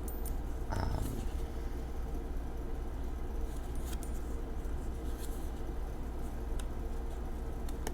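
A steady low background hum with a faint held tone, and a few light clicks and rustles of tarot cards being handled.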